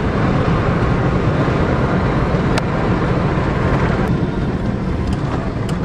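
Steady engine and road noise of a moving road vehicle, a continuous low rumble with a few faint ticks.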